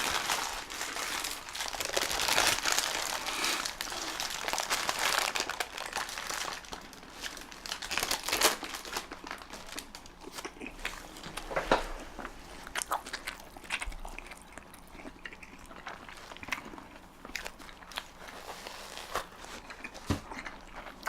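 Food wrapper crinkling loudly as a chili dog is unwrapped and handled, for about the first six seconds. Softer scattered crinkles and clicks follow.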